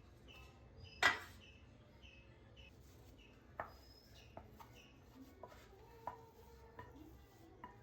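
Kitchen utensils knocking and clinking, with a sharp knock about a second in and lighter clicks after it. A bird chirps over and over in the background, about twice a second.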